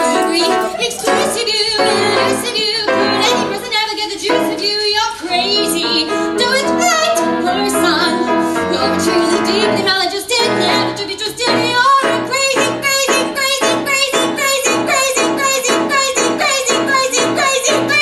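A woman singing a musical-theatre song with wavering vibrato over piano accompaniment. About ten seconds in, the accompaniment turns to quick, evenly repeated chords.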